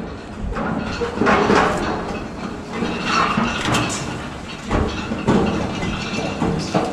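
Hurried footsteps clattering down metal scaffolding stair treads, a fast irregular run of knocks and rattles.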